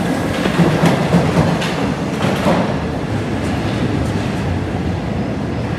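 Paris Métro train running past along a station platform, its wheels rumbling on the rails, with scattered sharp clicks over the first half.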